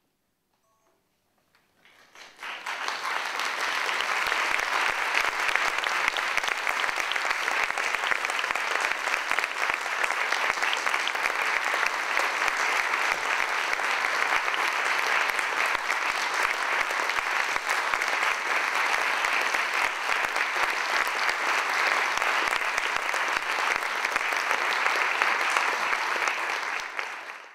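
Audience applauding: near silence for about two seconds, then steady clapping that fades away near the end.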